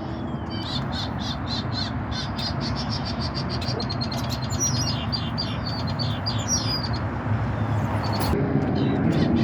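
Small birds chirping in quick runs of short, high repeated notes, several a second, some sliding down in pitch, over a steady low hum.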